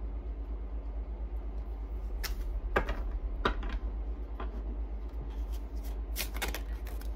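A deck of tarot cards being shuffled and handled by hand: a run of short, sharp card snaps and flicks starting about two seconds in, over a steady low hum.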